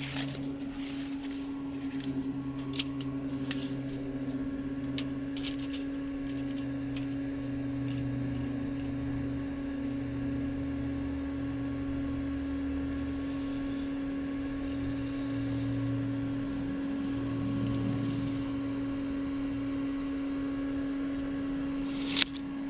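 A steady machine hum holding one constant tone, with a lower hum that comes and goes, and light clicks and taps from steel work by hand, mostly in the first few seconds, with a sharp click near the end.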